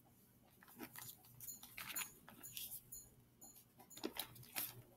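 Faint rustling and soft ticks of a Bible being handled and its thin pages leafed through by hand.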